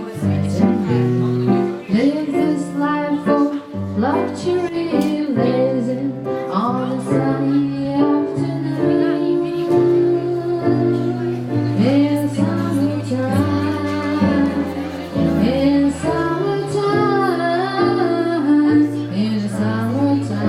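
Music with singing: a female or child's voice singing over a sustained instrumental accompaniment.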